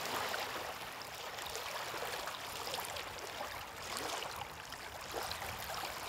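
Small waves lapping and splashing against a rocky lakeshore: a steady wash with irregular small splashes.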